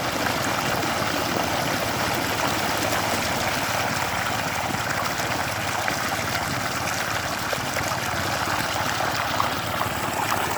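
Pumped water gushing steadily from a pump's outlet pipe and pouring into a flooded rice field.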